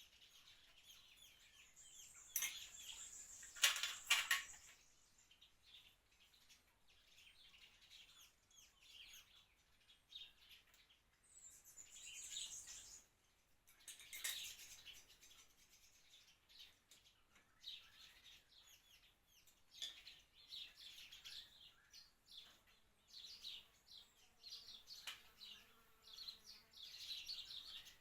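Birds chirping and calling, with short high chirps throughout. A few sharp clicks come about four seconds in and again around fourteen seconds.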